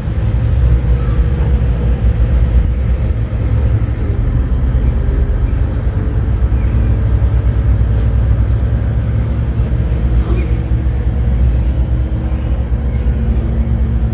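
Steady low outdoor rumble with a faint, level hum above it and a few faint high chirps near the middle.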